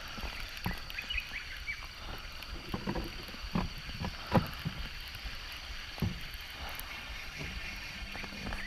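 Shimano Antares DC baitcasting reel being wound in during a retrieve, with scattered light clicks and knocks over a faint steady hum; a low steady hum comes in near the end.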